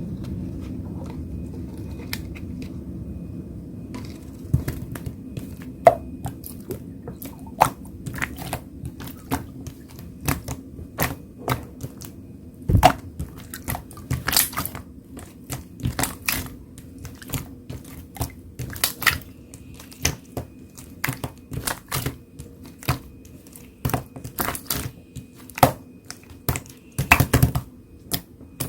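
A vacuum cleaner running steadily in the background as a low hum, loudest in the first few seconds. Close by are frequent irregular sharp clicks and rustles.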